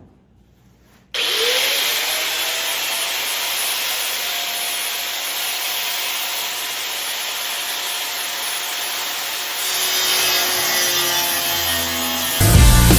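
Angle grinder spinning up about a second in, its pitch rising, then cutting steadily through the sheet-steel back of a 1936 pickup's cab for the roof chop. Loud rock music comes in near the end.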